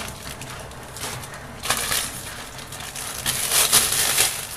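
Large plastic freezer bag crinkling as it is unfolded and handled, in short bursts, most of them in the second half.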